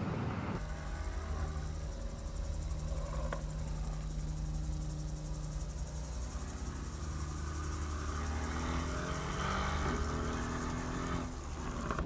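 Mercedes-AMG GT's twin-turbo 4.0-litre V8 running with a steady engine note, then rising in pitch from about eight seconds in as the car accelerates; the sound starts and cuts off abruptly.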